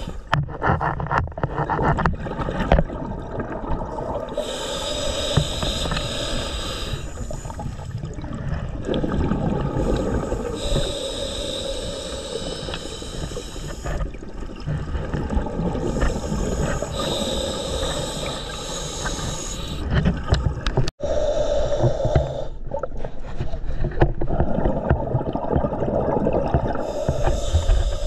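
Slow scuba breathing through a demand regulator underwater: a long hiss as each breath is drawn, then a low rumble of exhaled bubbles, about one breath every six to seven seconds.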